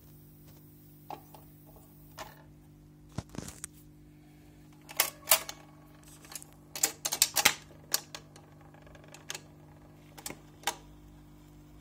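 Vintage record changer starting a 45 rpm single: irregular mechanical clicks and clunks, thickest and loudest a little past the middle, over a steady low hum, as the mechanism sets the record turning and the tonearm moves into place.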